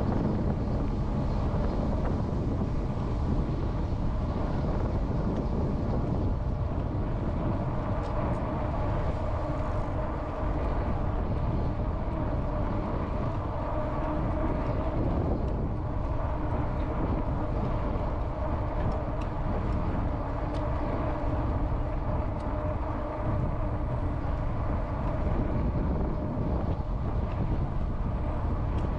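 Wind rushing over a GoPro's microphone and bicycle tyres rolling along a pathway while riding an e-bike: a steady low rumble with a few faint clicks.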